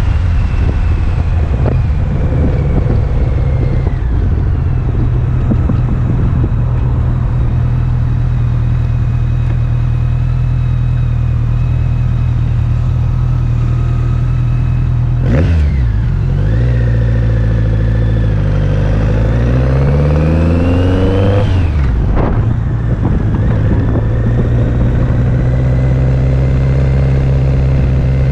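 BMW K100 'flying brick' motorcycle engine running at a steady cruise. About halfway the revs dip and recover quickly, then climb for about five seconds under acceleration and fall sharply at a gear change, before settling back to steady running.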